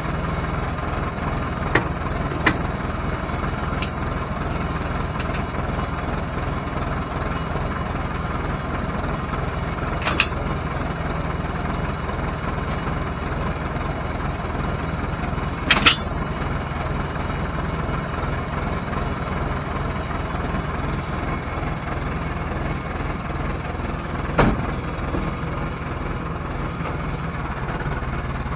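IHC 833 tractor's diesel engine idling steadily, with sharp metal clanks now and then as hitch parts are handled while the seed drill and power harrow combination is uncoupled from the three-point linkage. The clanks come six times, the loudest about halfway through.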